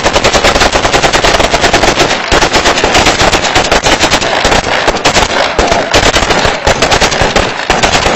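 Heavy, continuous automatic gunfire from several Kalashnikov-type rifles fired together, the shots overlapping into a dense rattle with no pause.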